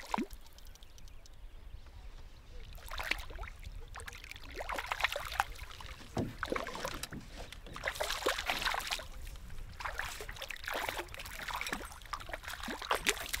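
A hooked lake trout splashing and thrashing at the surface beside a canoe, in irregular bursts of splashing and sloshing water.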